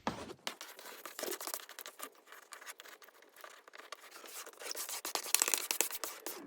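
Vinyl decal being rubbed and smoothed down onto a car's rear window glass: an irregular, faint scratching and rubbing that gets louder near the end, as air bubbles are pushed out toward the edges.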